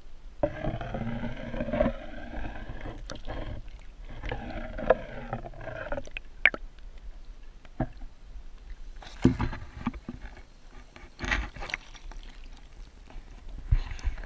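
Water sloshing and rushing around a GoPro in its waterproof housing as it is moved about under water, heard muffled, with two sweeping swells. Later come a few short splashes and knocks as the camera is handled near the surface.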